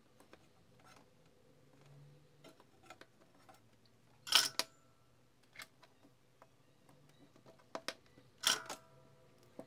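Soft clicks and taps from handling a heatsink, a small circuit board and a soldering iron on a work mat. Two louder, sharper clacks with a brief ring come about halfway through and near the end.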